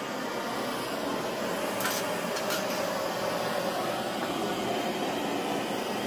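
Handheld propane torch burning with a steady hissing roar, with two short sharp clicks about two seconds in.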